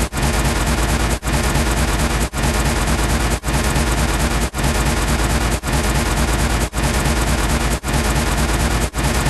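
A short, dense, noisy sound-effect clip looped over and over, about once a second, with a brief cut between repeats.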